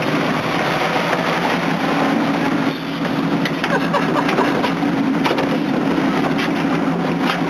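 Boat engine running steadily under wind and sea noise, with a constant low hum.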